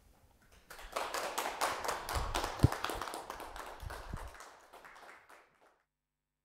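Applause: hands clapping, starting about a second in, thinning out and dying away after about five seconds, with one dull thump midway.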